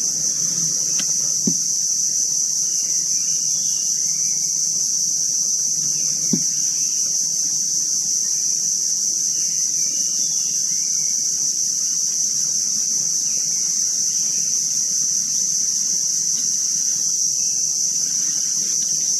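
Steady, high-pitched insect chorus, with a few faint chirps and soft knocks.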